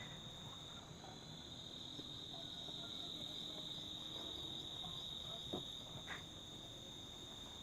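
Faint, steady chorus of insects in the open air: a continuous high-pitched chirring drone that holds level throughout.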